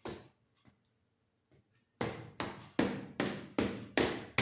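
One sharp knock, then about halfway through a steady run of sharp, hammer-like knocks, about two and a half a second, as the tyre is worked off a bicycle rim.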